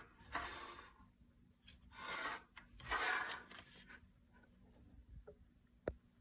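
Four rubbing or scraping strokes, each under a second, then a single sharp click near the end.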